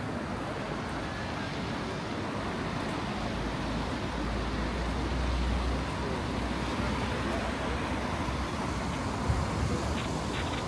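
City street ambience: steady traffic noise, with a low vehicle rumble that swells about halfway through and fades again. There is a single short knock near the end.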